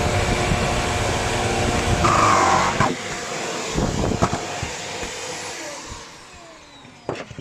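Shark Lift-Away NV601UK upright vacuum cleaner running, then switched off about three seconds in, its motor whine falling in pitch as it winds down. A few knocks along the way and clicks near the end.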